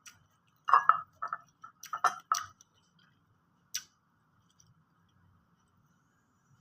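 Eating utensils clicking and clinking against dishes: a quick cluster of light knocks about a second in, and one more a little later.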